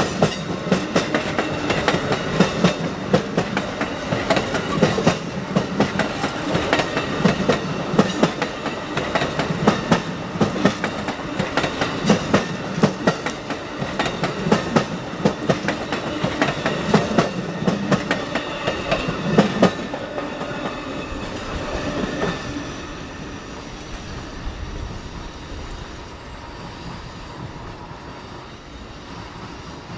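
Amtrak Silver Star passenger cars passing close at speed, their wheels clattering over the rail joints in a rapid clickety-clack. About twenty seconds in the clatter stops as the last car goes by, and the sound fades to a receding rumble.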